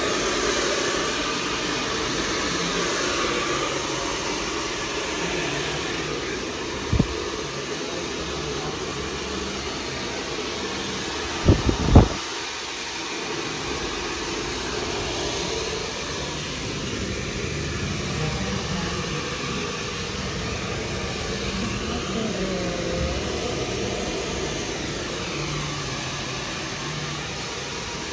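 Handheld hair dryer running steadily on wet hair. A knock comes about seven seconds in, and a few louder knocks follow around twelve seconds in.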